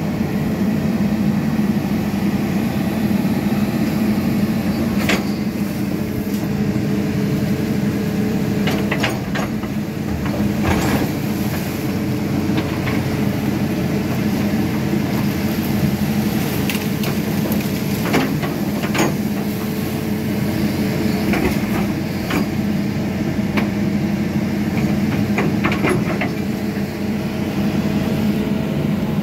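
Diesel engine of a Hitachi amphibious excavator running steadily while it digs, with scattered sharp knocks and clanks from the machine at work.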